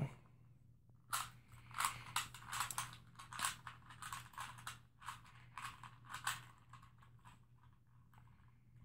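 Plastic 3x3 Rubik's Cube being twisted by hand in quick, irregular turns during a solve, its layers clicking and clacking. The turns thin out and go quieter near the end.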